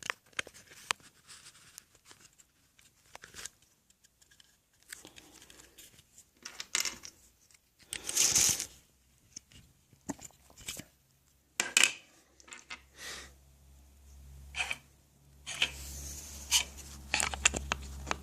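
Packaging being handled and torn open: irregular rustles and rips of paper and plastic, the loudest about eight seconds in, with a low handling rumble on the microphone near the end.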